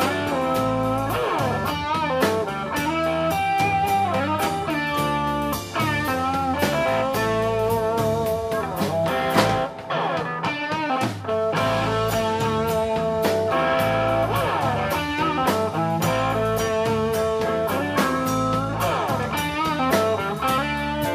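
Live blues band playing an instrumental passage: electric guitar, electric bass, drums and keyboard, with a harmonica played into the vocal microphone. Held notes waver and bend throughout.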